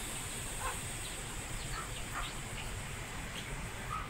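Chicks peeping: short, faint chirps scattered through, over a steady high hiss.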